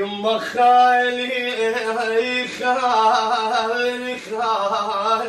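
A man singing an Arabic mawwal, drawing out long held notes with small wavering ornaments; the voice comes in abruptly.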